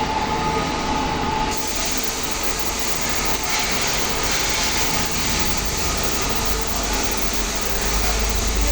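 Steady industrial machinery noise, a continuous mechanical rumble and hiss; the hiss turns brighter about a second and a half in.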